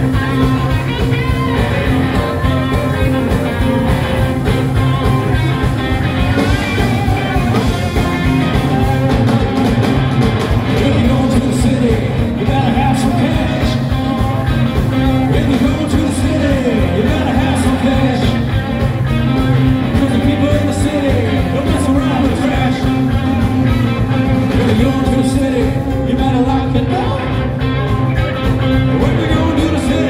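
Live blues-rock band playing: electric guitars, drums and keyboard with a lead singer's vocals over them.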